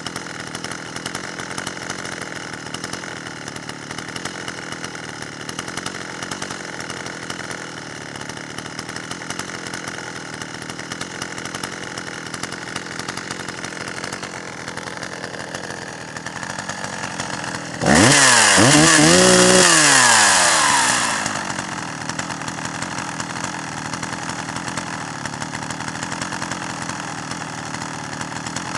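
Dolmar 120si two-stroke chainsaw idling steadily, then revved hard and briefly about two-thirds of the way through, its pitch rising and falling for about three seconds before it drops back to idle.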